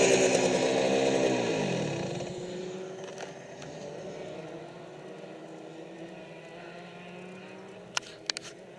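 Rotax two-stroke kart engine winding down, its pitch falling over the first couple of seconds until it dies away, leaving only faint background noise. A few sharp clicks near the end.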